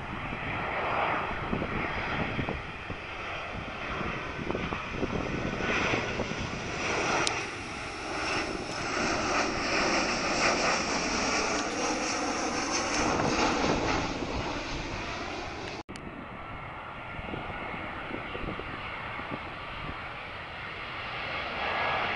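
Jet engines of a Boeing 737 airliner on landing approach, rising to a loud rush as it passes overhead. A sudden cut follows, and near the end the engines of a second approaching airliner, an Airbus A321, grow louder.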